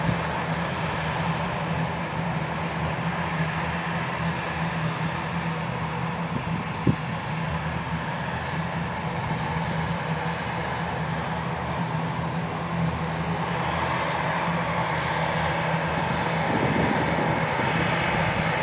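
ATR 72-600's twin Pratt & Whitney PW127 turboprop engines and propellers running with a steady drone, growing slightly louder over the last few seconds. A single short knock sounds about seven seconds in.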